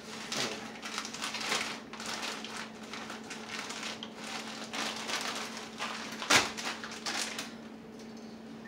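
A plastic food package crinkling and being crushed in the hands: a run of irregular rustles with one sharp crack about six seconds in, over a steady low hum.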